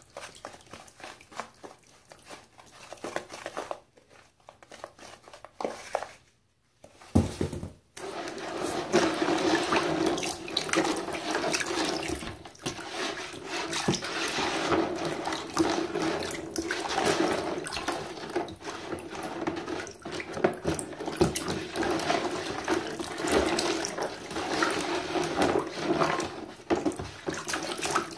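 Tap water running into a shallow plastic basin while a hand swishes and splashes the water over screwdriver bits to rinse them. The water sound is quieter for the first few seconds, then steady and louder from about eight seconds in.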